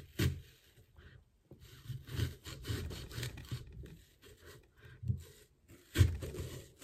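Serrated kitchen knife sawing through a whole apple on a wooden chopping board: short, irregular rough strokes with soft knocks, and a louder knock near the end.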